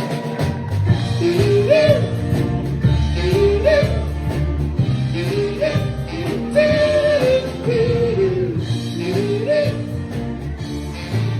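Live band playing an instrumental break: a lead melody line with bends and slides over bass and steady drums.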